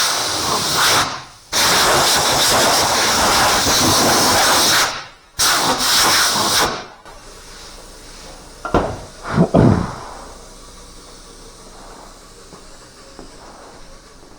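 Pneumatic air file sanding body filler on a car panel, a loud hissing rasp that runs in three spells and stops about seven seconds in. A couple of short knocks follow about two seconds later.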